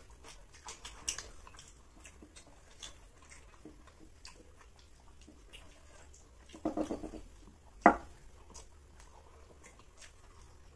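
Quiet eating sounds: chewing and small mouth and hand clicks as two people eat biryani and paratha by hand. A brief voiced sound comes about seven seconds in, followed by one sharp click just after.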